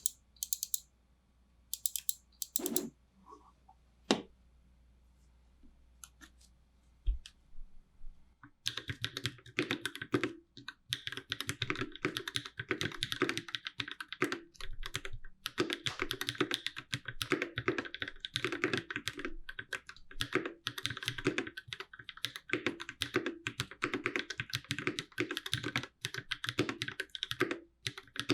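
A few scattered clicks, then from about nine seconds in continuous rapid typing on a Space65 CyberVoyager 65% mechanical keyboard fitted with Durock POM switches and GMK Striker keycaps. The board sits directly on the desk without a deskmat.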